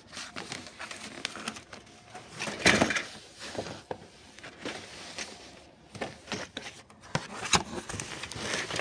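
Cardboard game box and its printed contents being handled and opened: irregular rustling and scraping with light knocks, louder for a moment about three seconds in and again near the end.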